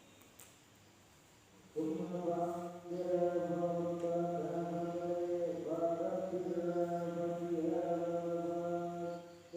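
A voice chanting in long held notes, starting about two seconds in and stepping up and down in pitch a few times before breaking off near the end. Beneath it runs a faint, steady, high insect drone.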